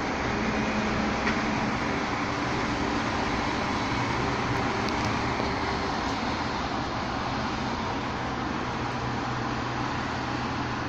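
Rotopress garbage truck running steadily while stationary, a continuous low engine hum with even mechanical noise over it.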